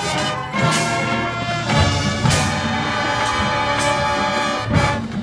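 Marching band brass playing sustained chords, punctuated by several sharp percussion hits.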